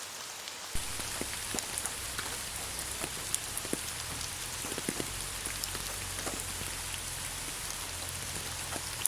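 Steady rain with many separate drops ticking close by. A click comes under a second in, and after it the rain is fuller and louder.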